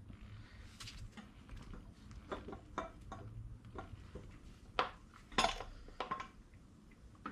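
Scattered light metallic clinks and knocks of the front wheel and brake disc being worked against the scooter's disc-brake caliper, with two sharper knocks about five seconds in. The disc will not slide in because the caliper pistons were pushed out when the brake lever was squeezed.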